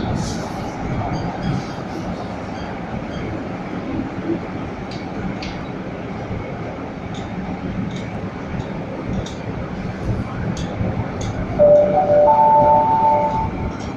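Steady rumble of a moving train carriage, heard from inside, with faint rattles. Near the end, a rising three-note chime rings, its notes overlapping, louder than the rumble.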